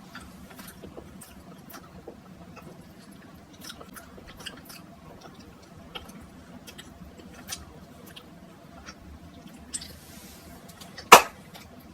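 A person chewing a small chewy sweet with the mouth close to the microphone, with faint wet clicks throughout. A single sharp click about eleven seconds in.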